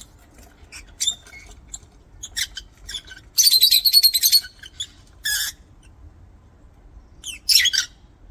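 Lovebirds calling: scattered shrill chirps, then about three and a half seconds in a second-long burst of rapid, shrill chattering, and another pair of shrill calls near the end.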